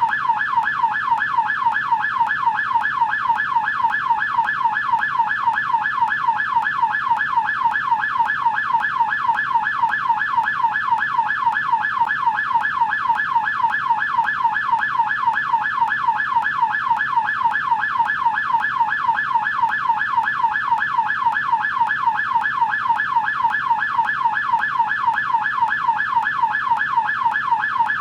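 American police siren on its yelp setting: a fast, evenly repeating up-and-down wail that runs on without a break.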